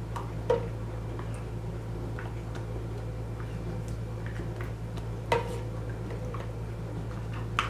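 A spoon stirring warm milk and honey in a saucepan, with a few light clicks against the pan, the clearest about half a second in and just past five seconds. A steady low hum runs underneath.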